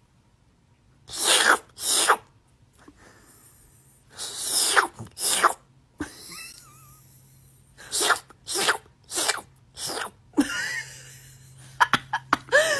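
A series of short, sharp sneezes: two pairs, then a quick run of four.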